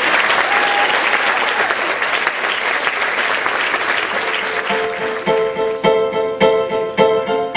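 Audience applauding. About two-thirds of the way in, music starts with a pitched note repeated about twice a second while the applause fades.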